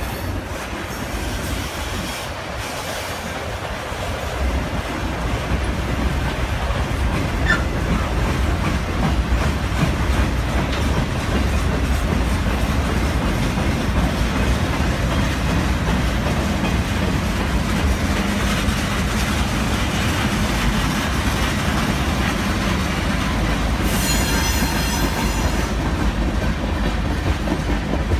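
Norfolk Southern mixed freight train rolling past: steady rumble and clatter of steel wheels on the rails, getting louder after a few seconds. Near the end the wheels let out a high-pitched squeal for about two seconds.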